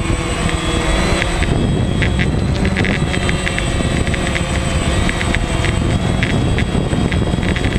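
DJI Phantom quadcopter's motors and propellers buzzing steadily in flight, heard through the GoPro mounted on it, with heavy wind rumble on the microphone.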